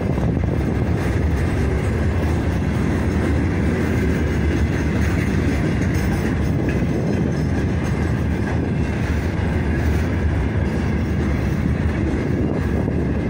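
Freight train of open gondola wagons rolling past close by, its wheels running steadily over the rails.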